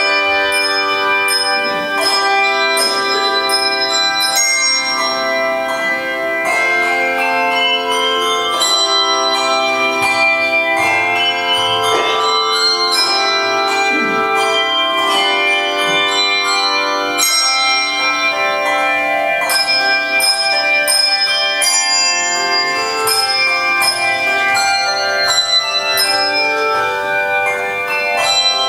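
Handbell choir playing a piece, many bells struck together in chords that ring on and overlap, changing chord every second or so.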